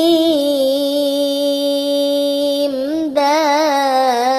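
A voice chanting Arabic letter names in a slow, melodic Quran-lesson recitation style. It holds one long, steady syllable, then about three seconds in begins "jeem" on a note that wavers up and down.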